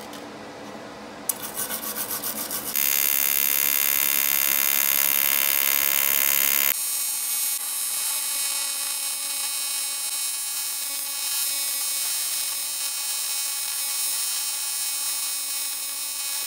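AC TIG welding arc on thin cast aluminum. A sharp click as the arc strikes about a second in, a second or so of stuttering buzz, then a steady loud buzzing hiss that drops a little quieter about seven seconds in. It cuts off at the very end as the arc is broken.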